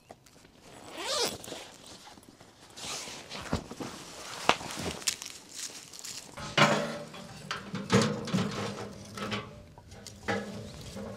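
Knife scraping and cutting raw fish, with a rising rasp about a second in and scattered sharp clicks and knocks as the fish and dishes are handled.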